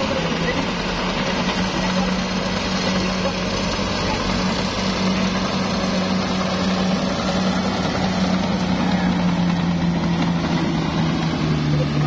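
Komatsu D68ESS crawler bulldozer's diesel engine running steadily as the dozer pushes earth with its blade, a constant low drone.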